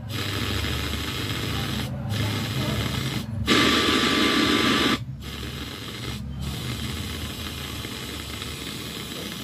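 Steady hissing noise, louder for about a second and a half in the middle, with several brief dropouts.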